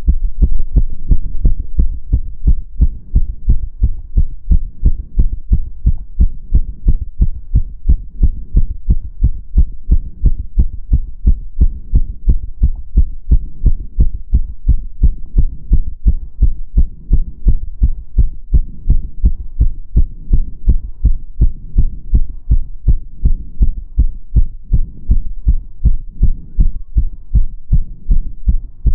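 A person's heartbeat beating fast in a steady, even rhythm of low thumps. The rate is raised by step-up exercise.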